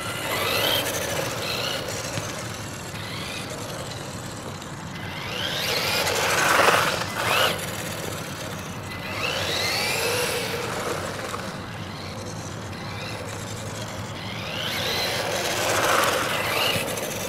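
Electric RC monster truck, running on a pack of power-tool 18650 cells, accelerating in short bursts on asphalt. Its motor whine rises in pitch with each burst, over the hiss of the tyres. This happens four or five times, loudest about six to seven seconds in.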